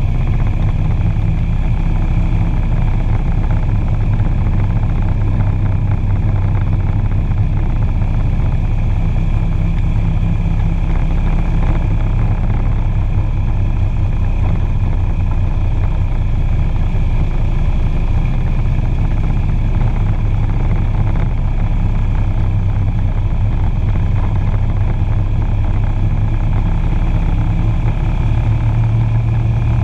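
Motorcycle engine running at a steady cruise with heavy wind and road noise. The low engine hum shifts slightly in pitch a few times.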